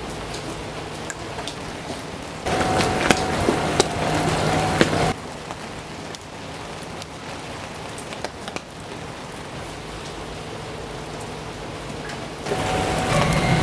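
Steady rain falling, with scattered drops pattering. It gets louder for a stretch a few seconds in and again near the end, when a low steady hum comes in under it.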